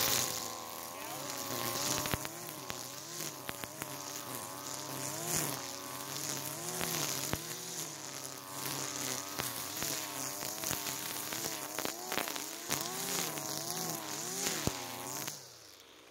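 Gas-powered string trimmer (weed whacker) running and cutting grass and weeds down to the ground, its engine pitch rising and falling over and over as the throttle is worked, with scattered sharp clicks. It cuts off near the end.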